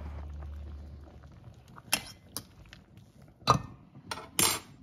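A fork clinking against a stainless steel pot as boiled potatoes are tested for tenderness, then the pot's steel lid set back on: a handful of sharp metal clinks, the last one longer and ringing.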